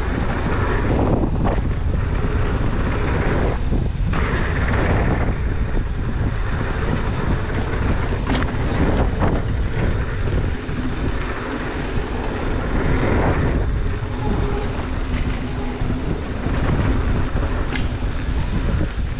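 Wind rushing over the camera microphone and tyres rumbling on a dirt trail as a mountain bike rides fast, with a few short knocks from bumps.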